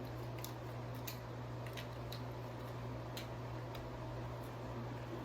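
Scattered light clicks and taps from handling small plastic camera-accessory parts, about seven at irregular intervals, over a steady low hum.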